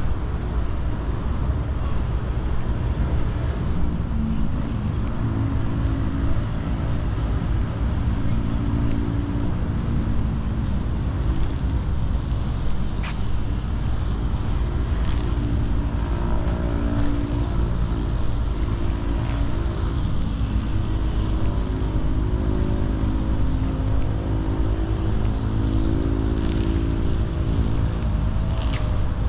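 Steady outdoor background rumble of road traffic, with no single event standing out.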